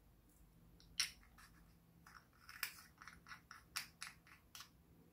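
Light, sharp clicks and taps of small plastic cosmetic jars and loose plastic sequins against a glass dish: one louder click about a second in, then a quick run of about a dozen clicks over the next few seconds.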